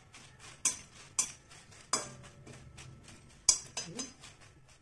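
A metal utensil stirring Byadgi and Guntur dried red chillies frying in a little hot oil in an aluminium kadai, scraping and clinking against the pan. There are a few sharp clinks, the loudest about three and a half seconds in.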